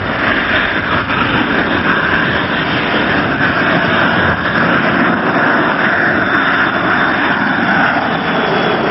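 Jet airliner passing low with its landing gear down, its engines making a steady, loud rushing noise.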